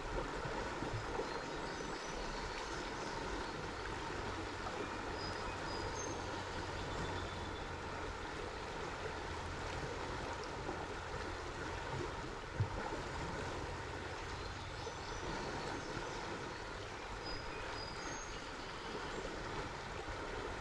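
Steady riverbank ambience: an even hiss of flowing water over a low hum, with a few faint short high chirps and one soft knock about twelve and a half seconds in.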